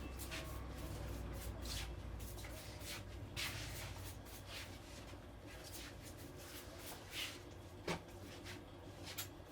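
Hands rubbing and stroking over hair and skin during a head massage: a run of short rustling strokes, with one sharper click late on.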